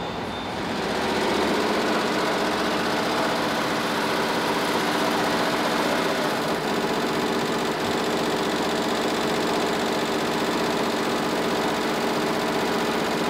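Multi-head industrial embroidery machine stitching: a steady, rapid mechanical clatter that grows louder about a second in.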